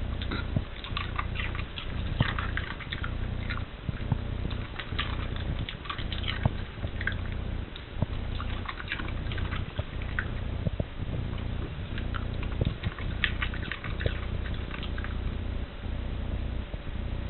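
A dog crunching and chewing raw cabbage cores, with irregular crisp crunches throughout, over a low steady hum.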